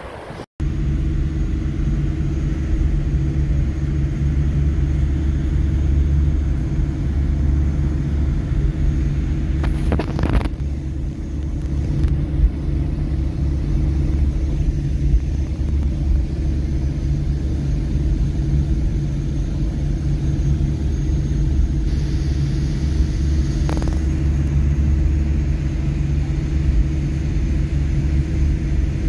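Engine running at a constant speed: a steady, loud low drone with an unchanging hum.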